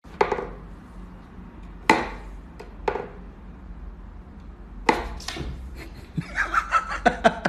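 Sharp wooden knocks from a wooden whack-a-mole cat toy, its pegs rapping in their holes as a cat paws at them and they are pushed up from below, several single knocks a second or so apart. Near the end comes a quick, even run of short pitched taps.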